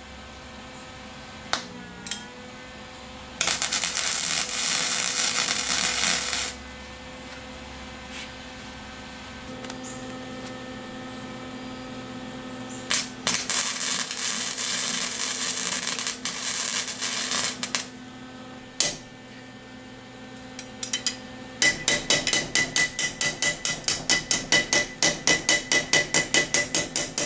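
Flux-core wire welder arcing in two bursts of crackling, one about three seconds long and a later one about five seconds long, with a steady hum between them. About two-thirds of the way through, rapid hammer blows on metal start, about five a second.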